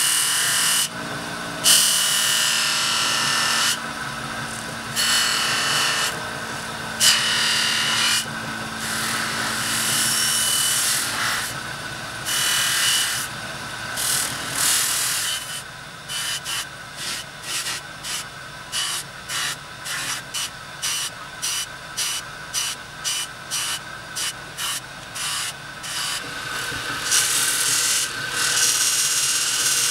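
Cloth buffing wheel on a bench polisher spinning, with small metal parts of a petrol lighter insert pressed against it: long rubbing passes at first, then from about halfway quick repeated touches, about two a second, before longer passes return near the end.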